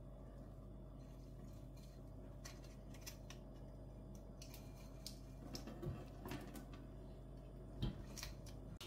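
Faint scattered ticks and taps of a metal mesh sieve being shaken over a stainless steel sink to drain excess water from chopped onion and peppers, with two soft knocks in the second half. A low steady hum runs underneath.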